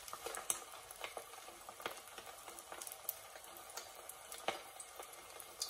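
A small pork meatball deep-frying in a pot of hot oil: a steady sizzle with scattered sharp crackles and pops.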